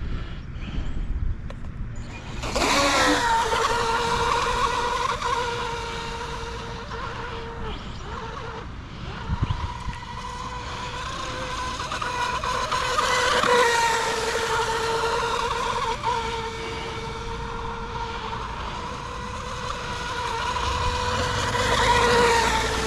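Tenshock brushless motor of an RC mini mono speedboat at full throttle: a steady high whine with spray hiss, starting about two and a half seconds in and holding its pitch. It swells twice as the boat passes nearer, around the middle and near the end, on a top-speed run of about 33 mph.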